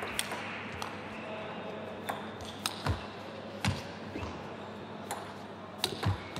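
Table tennis rally: the celluloid ball clicking sharply off rubber-faced bats and the table at an uneven pace, about ten hits, with a few duller thumps under some of them.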